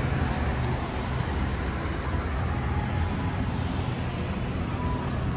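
Road traffic: cars passing on the street, a steady low rumble of engines and tyres with no single vehicle standing out.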